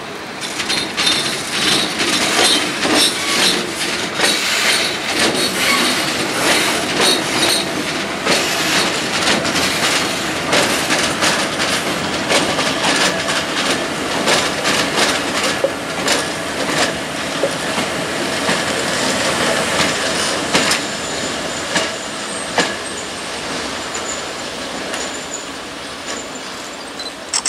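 Czech-built electric locomotives (two class 183 and a class 131 twin unit) running light and slowly through the station, wheels clattering over rail joints and points with a thin high wheel squeal at times. The sound gets gradually quieter over the last few seconds as the locomotives pass.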